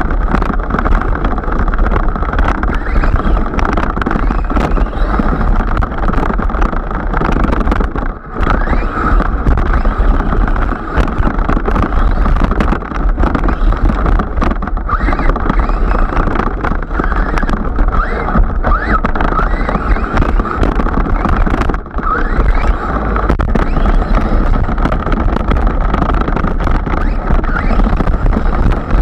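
Team Magic E6 III BES electric RC truck heard from its own onboard camera as it drives over grass: a motor and drivetrain whine that wavers in pitch with the throttle, over loud rushing noise from the tyres and grass, with frequent sharp knocks from the chassis bouncing. The sound drops out briefly twice, once a third of the way in and once about three-quarters in.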